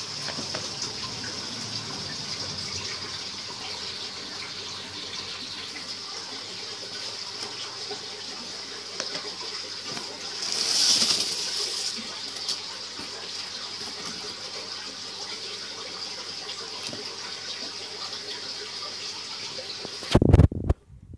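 A steady rushing hiss of running water, swelling for a couple of seconds about halfway through. Near the end come a few loud thumps.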